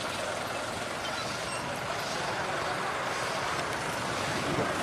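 Tow truck's engine running as it drives off slowly with its load, mixed with steady roadside crowd and traffic noise.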